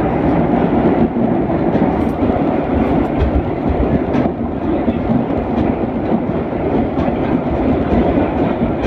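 Vintage subway train running through an underground station, heard from on board: a steady rumble of wheels on rails with a few clicks over the rail joints.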